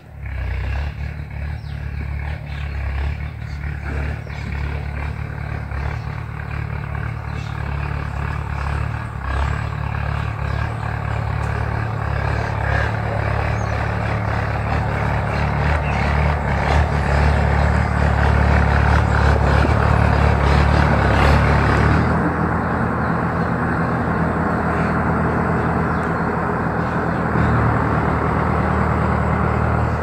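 A loud, steady low rumble of an engine running, swelling slowly and dropping a little about twenty seconds in.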